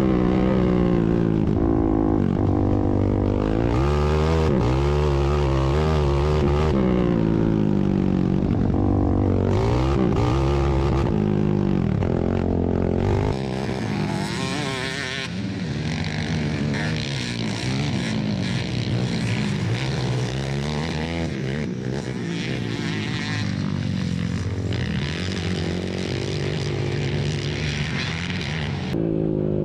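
Several racing ATV engines revving, their pitches rising and falling and overlapping as the machines accelerate and back off. About 13 seconds in the sound gets somewhat quieter.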